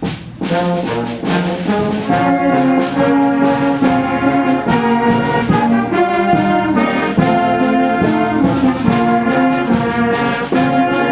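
Youth concert wind band playing, with the brass loudest. The band comes back in together right at the start after a brief break, then plays on loudly.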